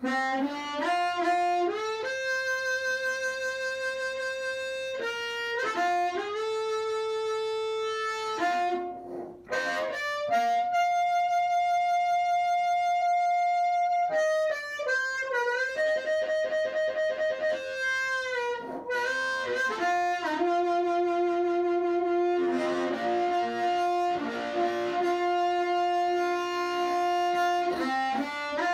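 Harmonica played into a Dyna-Mic harp microphone and amplified through a small cigar-box amp circuit and speaker: a tune of long held notes that waver and bend between pitches.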